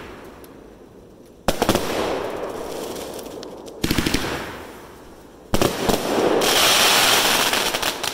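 Boom Wow Focus 500 g 25-shot firework cake firing three volleys, each a rapid string of several shots from its tubes, followed by the fading crackle of the bursting stars. The last volley ends in a longer, louder crackling hiss.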